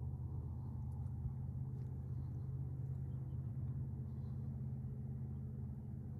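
Steady low engine rumble of vehicles in the fog, unchanging throughout, with a few faint ticks in the second and third seconds.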